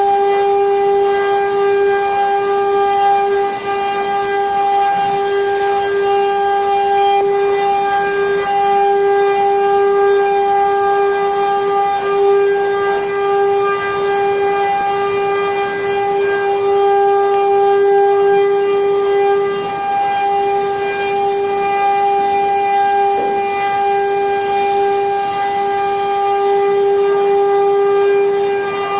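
Spindle motor of a 4-axis CNC wood carving machine running at speed, a steady high whine that holds one pitch throughout.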